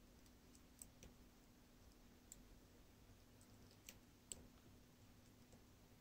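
Near silence with about half a dozen faint, short clicks from a lock pick working the pins of a DOM RS8 cylinder lock under tension, as its side pins are being picked.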